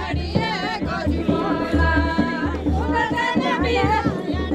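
Singing of a traditional Pahadi village folk song, with a low pulsing beat underneath.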